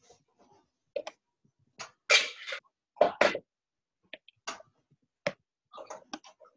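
A dozen or so irregular sharp clicks and knocks, the loudest a double knock about three seconds in, heard through a video call's audio.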